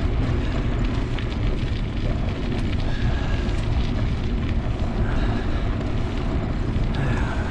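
Wind buffeting the microphone on a moving bicycle: a steady, loud, low rumble.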